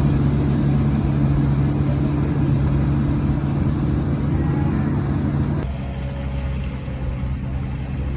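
Kubota rice combine harvester's diesel engine running steadily under load; about two-thirds of the way through its note drops and it gets quieter.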